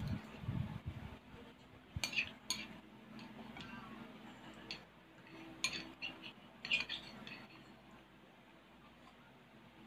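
Metal spoon clinking against a ceramic bowl of noodles: a few separate clinks, then a quick cluster of them about seven seconds in.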